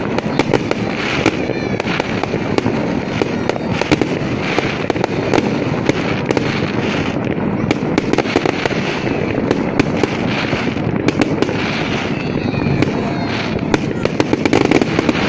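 Fireworks display: a dense, unbroken run of bangs and crackling, with a few faint whistles among them.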